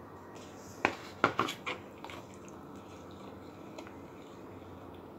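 A steel spoon stirring liquid in a plastic bowl of tamarind water with chopped tomatoes and coriander: a quick run of four or five light knocks and clinks against the bowl about a second in, then only faint sloshing.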